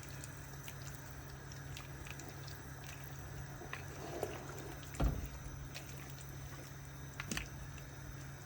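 Thick soup simmering in a pot on the heat, with faint bubbling and crackling, as it is stirred; a spoon knocks against the pot about five seconds in and again, more lightly, about two seconds later.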